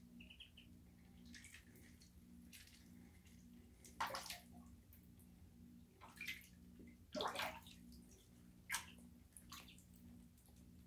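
Muscovy ducklings paddling and splashing in shallow water in a tub, with four short, louder splashes through the middle of the stretch and a couple of faint high peeps near the start.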